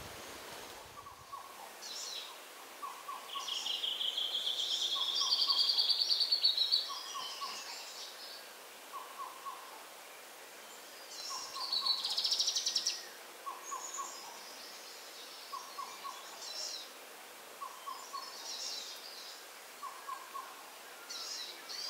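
Rainforest birds calling. A short two- or three-note call repeats about once a second, and a higher trilling song rises in pitch twice, loudest about 12 seconds in, among scattered chirps.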